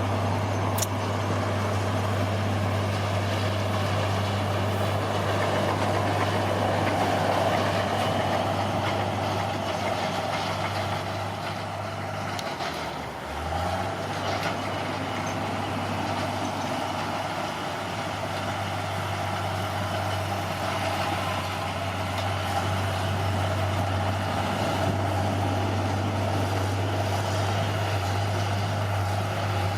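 Bulldozer's diesel engine running steadily under work, briefly dropping in pitch and level and then picking up again about halfway through.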